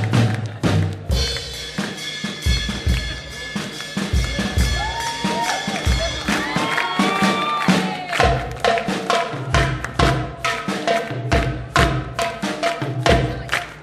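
Background music with a steady drum-kit beat, with gliding pitched notes in the middle.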